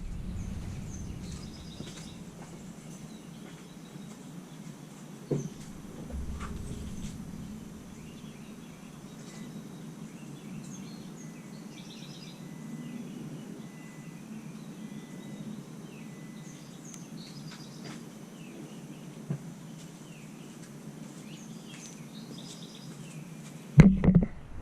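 Outdoor background ambience with a steady low hum and faint bird chirps scattered throughout, and two light clicks, one about five seconds in and one near nineteen seconds.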